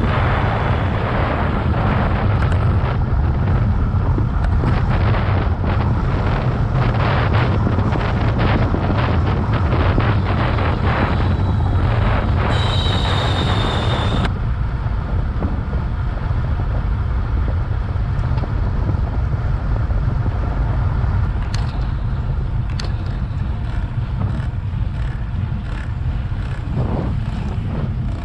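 Wind buffeting the microphone of a camera on a moving bicycle: a loud, steady low rumble with gusty rushes. A brief high squeal comes about halfway through.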